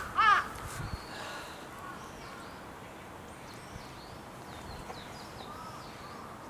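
A crow caws once just at the start, ending a run of caws. Then steady outdoor background noise with faint, high small-bird chirps.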